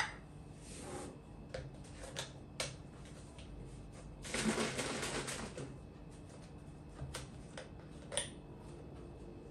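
Kitchen handling noises of cartons and a glass carafe on a wooden table: scattered light taps and clicks, and a rustling, rattling burst lasting about a second and a half near the middle. Near the end there is a click as a hand works the plastic cap of a carton of almond milk.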